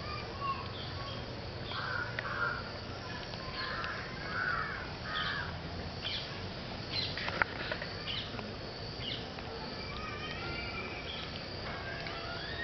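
Birds calling in the background: scattered short calls and chirps, over a low steady hum.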